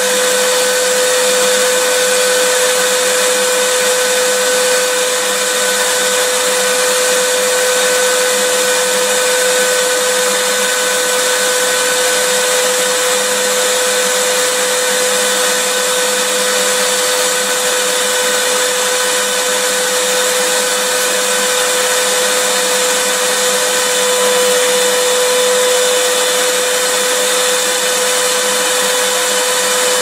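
Vacuum cleaner motor running steadily: an even hiss with a constant high whine.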